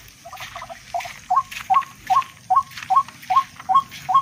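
A tikling (rail) calling: a steady series of short, hooked call notes, each rising then levelling off, about two and a half a second. The notes begin softer and quicker and grow regular about a second in, over light rustling.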